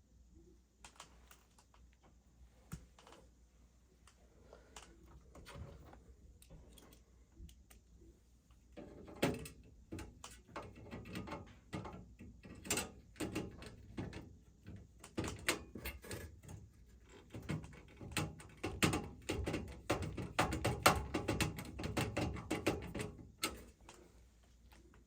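Hand work on small metal furnace parts and tools: an irregular run of clicks, taps and knocks, sparse at first, then busy from about a third of the way in until near the end.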